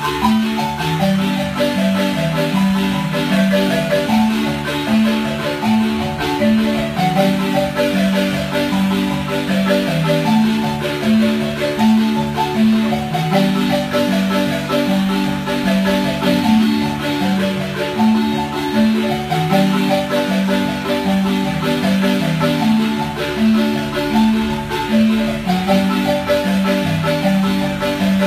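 Marimba playing a dance tune: mallets strike a repeating low bass pattern under a higher melody, at a steady beat.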